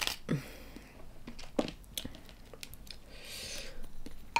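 Close-up sounds of a large soy-sauce-marinated tiger prawn being pulled apart by hand, with scattered wet clicks and shell crackles, and some chewing.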